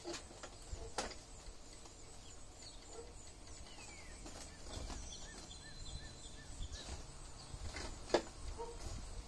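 Outdoor ambience of birds chirping, including a short run of repeated chirps midway, over a steady low rumble. A few sharp knocks are heard, the loudest about eight seconds in.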